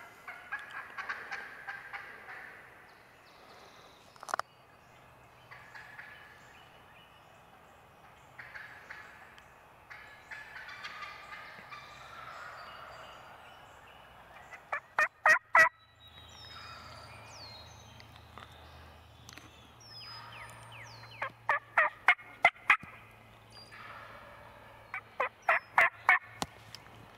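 Wild turkey gobbling repeatedly, its rattling gobbles coming again and again. Three times, about halfway through and near the end, a loud, fast string of sharp turkey yelps sounds close by. Small songbirds whistle high in the background.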